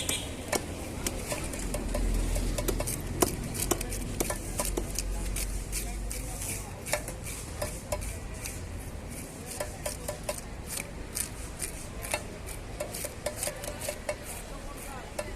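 A metal blade clicking and scraping in quick, irregular strokes as it works through a large bhetki (barramundi), several sharp ticks a second. A low rumble underlies the first half.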